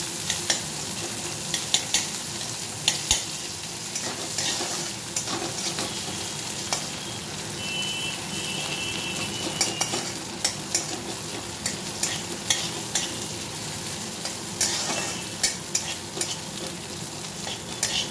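Chopped onions sizzling in a little oil in a metal kadai, stirred with a metal spatula that scrapes and clicks against the pan at irregular intervals.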